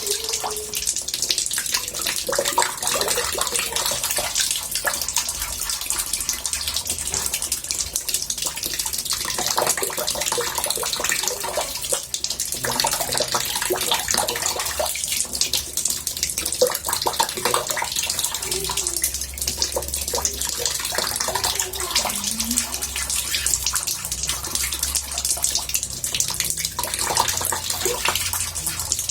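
Water running from a tap into a bathtub: a steady, even splashing rush.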